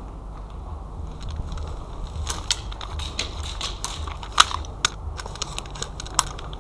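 Airsoft gunfire and BB hits: a scattered run of a dozen or so sharp clicks and snaps over about four seconds, the loudest about halfway through, over a low steady rumble.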